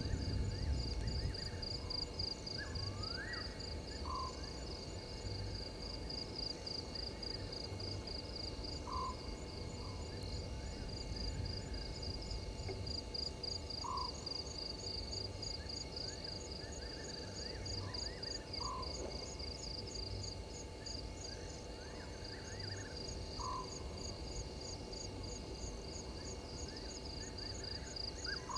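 Night-time bush chorus at a waterhole: an insect trills steadily in a high, rapid pulse. Frogs call over it, with short single notes every few seconds and scattered clusters of quick chirps, and an uneven low rumble lies underneath.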